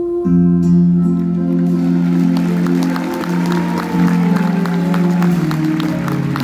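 Live band music with held, sustained chords over a deep bass line. Audience clapping joins in from about two seconds in.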